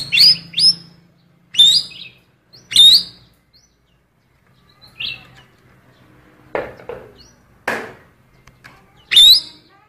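Cucak keling songbird giving short, sharp rising chirps, three in quick succession at the start and then one every second or so, some fainter. These are female oriental magpie-robin (kacer) calls it has learned to imitate.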